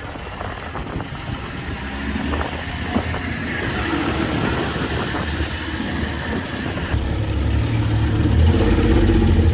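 A boat's engine running, growing louder and deeper toward the end.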